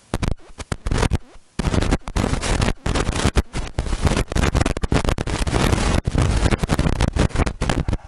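Loud rubbing and scraping right on the microphone, broken by many sudden short gaps: handling noise from the camera being carried.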